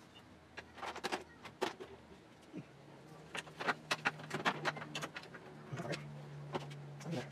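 Hand tools and bolts clicking and clinking as the bolts holding the metal radiator support are tightened, with a steady low hum coming in about two and a half seconds in.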